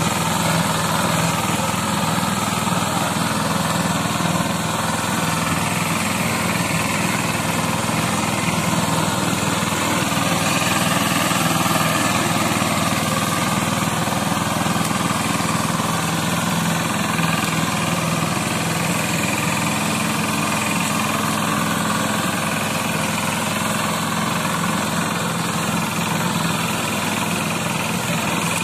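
Eicher 188 18 HP mini tractor's diesel engine running steadily under load as it pulls a loaded trailer.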